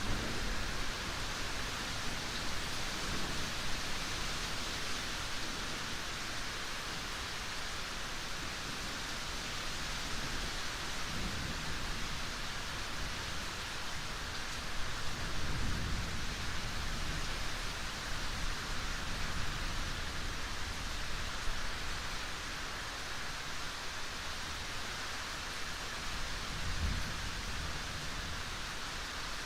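Steady rain falling as an even, continuous hiss, with a few low rumbles of distant thunder swelling briefly, around a third and a half of the way through and again near the end.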